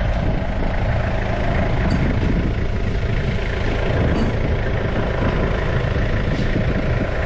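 Forklift engine running steadily at idle while it holds a gate up on its forks.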